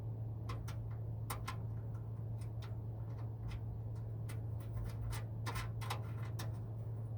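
Irregular light metallic clicks and ticks as a nut and washer are handled and threaded onto a horn-mount bolt under a vehicle fender, busiest near the start and again about five seconds in. A steady low hum runs underneath.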